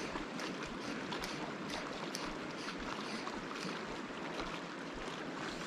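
Stream water rushing steadily over a riffle, with small splashing and gurgling ticks scattered through it.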